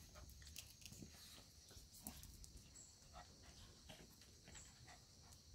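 Very faint scuffling and scattered soft clicks of Shih Tzu puppies playing and tussling on a concrete floor.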